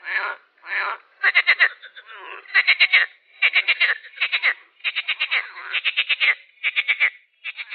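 A frog croaking over and over: about a dozen short calls, each a quick rattle of pulses, coming one to two a second with short gaps between them.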